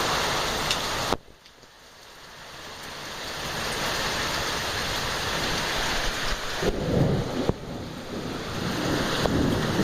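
Heavy rain falling in a steady hiss. About a second in the sound drops away suddenly and builds back up gradually, and low rumbling comes and goes in the second half.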